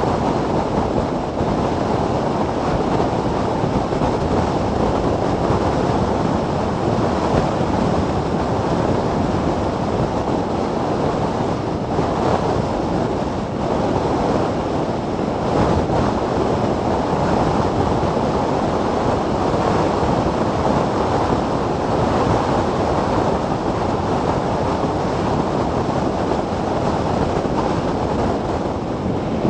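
Steady wind rush on the microphone of a camera mounted on a Zero DSR electric motorcycle riding at speed.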